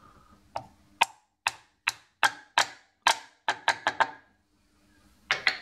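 Sharp knocks of a small steel part against a wooden board, about ten spaced strikes with a quicker run near four seconds in, then two quick ones near the end.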